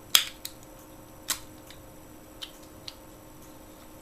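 Sharp metallic clicks from a discus padlock being handled and picked: a loud click just after the start, another about a second later, and a few fainter ticks after that.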